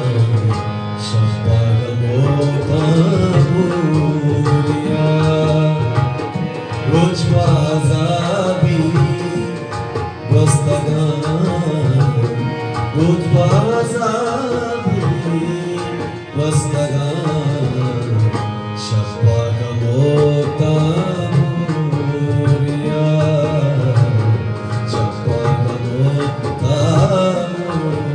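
Balochi song: a man singing with harmonium accompaniment, a dholak drum keeping a steady beat beneath.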